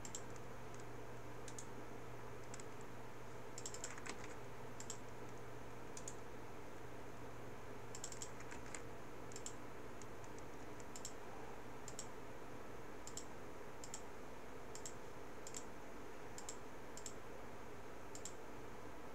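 Faint, scattered clicks from a computer mouse and keyboard, about one or two a second with short pauses, over a steady low hum.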